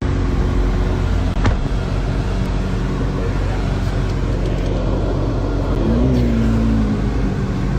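Steady, loud drone of a moving vehicle heard from inside the cabin, cutting in abruptly. A single sharp click comes about a second and a half in.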